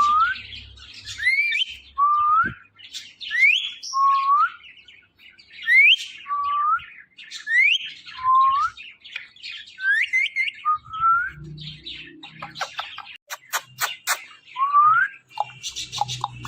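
Ringneck parrot whistling the same two-note call over and over, about every two seconds: a quick rising whistle followed by a lower note. Near the end the calls give way to a run of sharp clicks and scratchy chatter.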